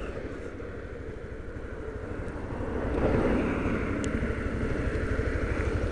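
Suzuki VanVan 125 motorcycle on the move: its single-cylinder engine running under a steady rush of wind noise on the camera microphone, getting louder about three seconds in.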